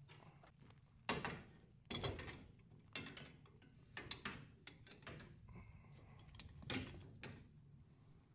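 Hand saw rasping through bison rib bone in rough strokes about once a second, mixed with knocks and scrapes from the carcass being handled.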